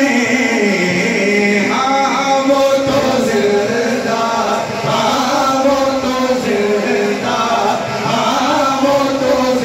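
A man singing a naat into a microphone, unaccompanied by instruments, in long held notes that waver and bend in pitch.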